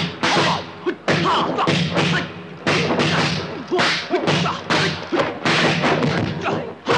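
Kung fu film fight sound effects: a rapid series of about a dozen sharp punch and kick impacts, mixed with the fighters' short grunts and shouts.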